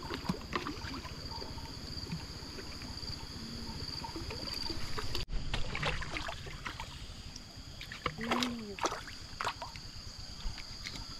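Water splashing and sloshing in a shallow pond as a fish caught on a bottle-float line thrashes at the surface and is pulled to the bank. The splashes come as several short strokes, most of them in the second half.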